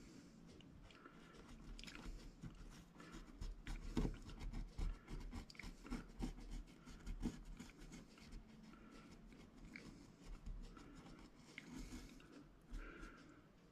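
Quiet close-up handling noises: scattered small clicks, taps and rustles, with a few louder knocks between about four and seven seconds in.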